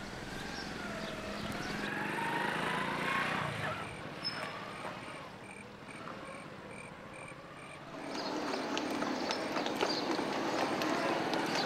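A wavering, gliding tone for the first few seconds, then a short row of evenly spaced high chirps. From about eight seconds in comes the clip-clop of horse hooves on a street.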